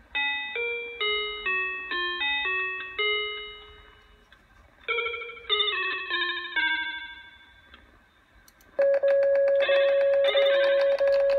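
Electronic toy-instrument sounds played back from a computer: two short runs of bell-like beeping notes, each struck and then fading, followed about nine seconds in by a loud steady electronic tone with a rapid buzzy flutter.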